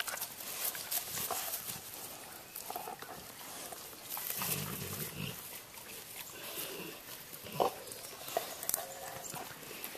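Dogs playing with sticks on grass: animal sounds with scattered clicks and knocks of the sticks, and a short low sound about four and a half seconds in.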